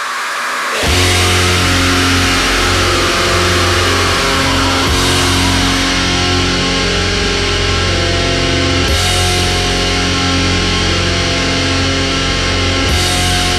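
Opening of a black metal song: a hiss of noise swells in, then about a second in heavily distorted guitars and bass come in together. They hold chords that change every four seconds or so.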